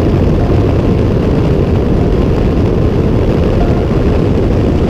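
Helicopter engine and rotor noise, a loud, steady drone.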